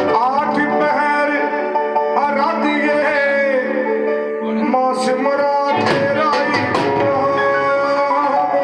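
A man singing a devotional song into a microphone over sustained instrumental accompaniment, with a few drum hits between about five and seven seconds in.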